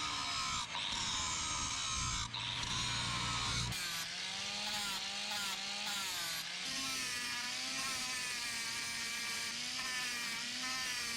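Power tool, such as a grinder, working steel, its motor pitch wavering as it loads and unloads. The sound changes abruptly about four seconds in.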